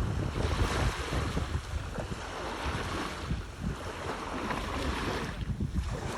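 Wind buffeting the microphone over the wash of the sea, an uneven rumbling noise.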